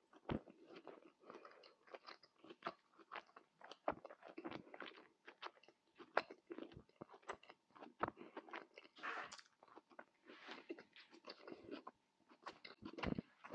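Close-miked eating sounds of someone chewing Moroccan tajine: dense, irregular chewing with crisp, crunchy bites.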